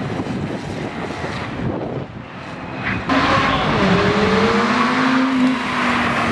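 Supercar engine revving hard: a rough, dense rumble for about three seconds, then a sudden switch to a louder, clearer engine note that rises and then falls in pitch.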